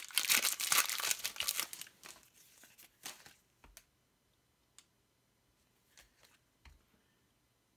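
Foil trading-card booster pack being torn open and crinkled for about two seconds, fading out, then a few faint clicks as the cards are handled and laid down.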